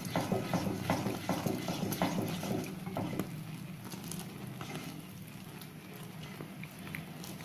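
A ladle stirring milk and sugar boiling down to condensed milk in a steel pan, knocking and scraping the pan in quick irregular taps for about three seconds, then a fainter steady sound of the simmering pan.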